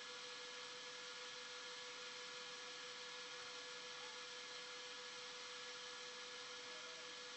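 Quiet background hiss with a faint, steady hum at one pitch: recording room tone.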